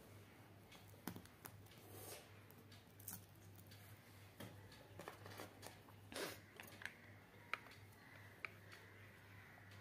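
Faint handling of craft materials: light clicks, taps and rustles as paper leaves and wooden ice-cream sticks are pressed and moved, with a couple of sharp ticks near the end as a hot glue gun is picked up. A low steady hum sits underneath.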